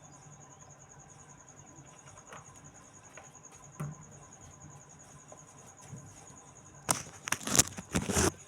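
A high, steady pulsing trill like an insect's chirring. Near the end comes a loud burst of clattering knocks lasting about a second and a half.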